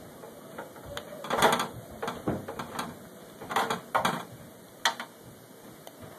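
Hands working small parts and wires during an Xbox 360 repair: a few short clicks and scrapes come in bunches, the loudest about a second and a half in and again around four and five seconds in.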